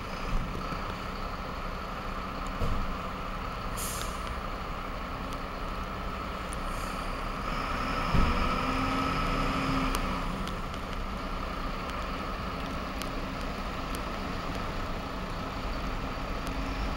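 Fire trucks' diesel engines running as the engines move off, with short air-brake hisses about four and seven seconds in and a louder thump a little past the middle.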